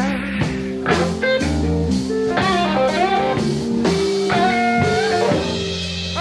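Blues band playing live, with a guitar playing a fill of bent notes between sung lines over the rhythm of the band.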